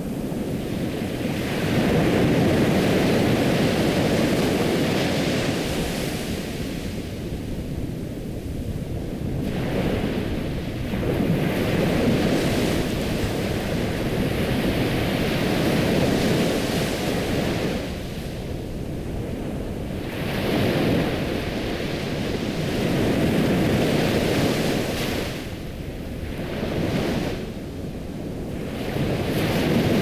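Ocean surf: waves washing in and drawing back, the rushing noise swelling and ebbing every few seconds.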